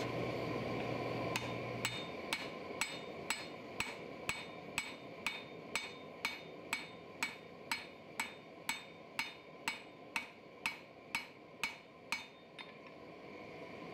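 Hand hammer striking a hot three-layer san mai steel billet on an anvil, an even rhythm of about two blows a second that stops near the end.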